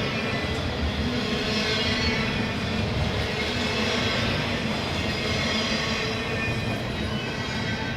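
Slow intermodal freight train rolling past: a steady rumble of the cars on the rails, with a faint high wheel squeal.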